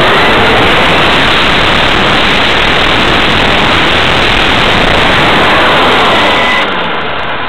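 Onboard microphone on a Traxxas E-Maxx RC monster truck driven at speed on its Novak brushless motor: loud, rushing wind and tyre noise with a faint electric motor whine. It eases slightly near the end.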